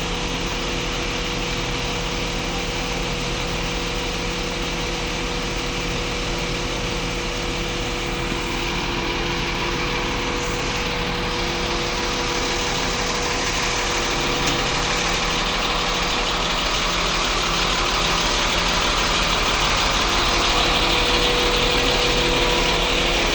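Engine running steadily at a constant speed, growing a little louder over the last several seconds.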